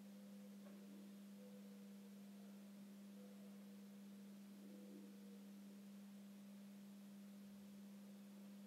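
Near silence with a steady low hum that does not change or fade.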